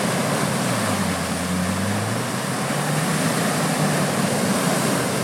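Land Rover Defender's engine pulling hard through deep muddy water, its note rising and falling, over a loud, steady rush of churning, splashing mud and water from the spinning tyres.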